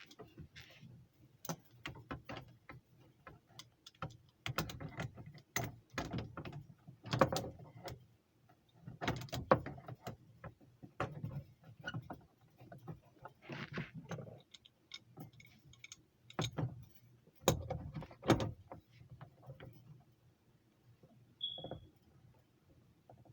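Irregular clinks, knocks and clatter of metal tools and fittings being handled, with short quiet gaps between them and a brief high chirp near the end.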